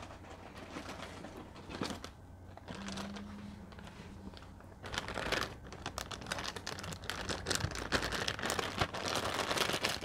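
Plastic bag of cotton rounds crinkling and rustling as it is handled, much louder from about halfway through.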